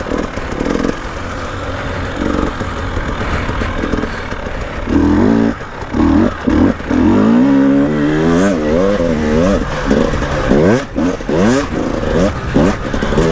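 KTM 300 two-stroke enduro bike running under the rider: at low, even throttle at first, then from about five seconds in revving up and falling back again and again as the throttle is worked through sand whoops, with several quick rising revs near the end.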